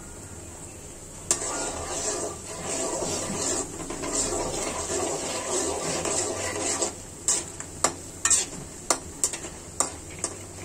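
A cooking utensil stirring and scraping frying snacks in a pan of hot oil for several seconds, then a run of sharp taps and knocks of the utensil against the pan.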